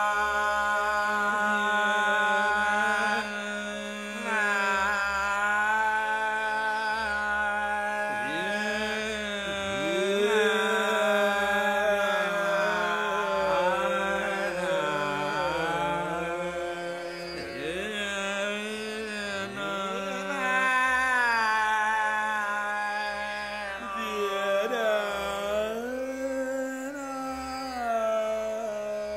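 Male dhrupad vocal in raga Puriya Dhanashree, holding notes and sweeping between them in slow, deep glides over a steady tanpura drone, with no drum accompaniment.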